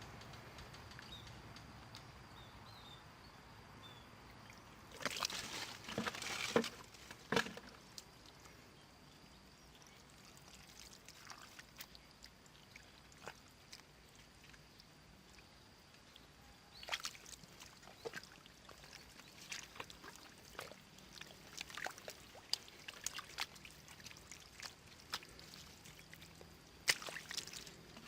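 Intermittent splashing and sloshing in shallow water, in short bursts with quieter stretches between.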